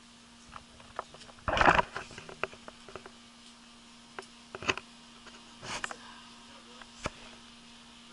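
Handling noise of a handheld camera rubbing against a woven shade-cloth fence: scattered clicks and scrapes, with one louder rustling burst about a second and a half in, over a faint steady hum.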